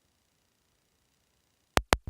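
Near silence, then two sharp clicks in quick succession near the end.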